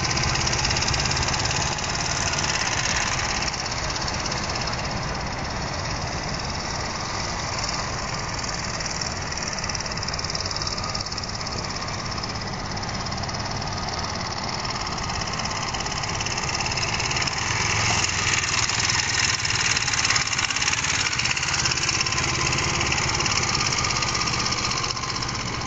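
Kawasaki Ninja 250 motorcycle's small parallel-twin engine running at low speed as it rides around. It grows louder about two-thirds of the way through as the bike comes back closer.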